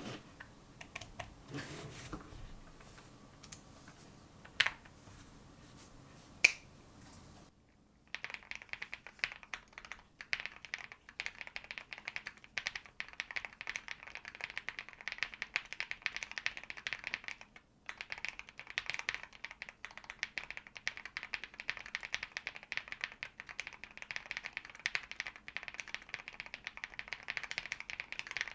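Typing on a Zoom65 mechanical keyboard with lubed Tecsee Oreo switches: a fast, steady stream of keystrokes starting about a quarter of the way in, with a brief pause midway. Before the typing, two sharp single clicks.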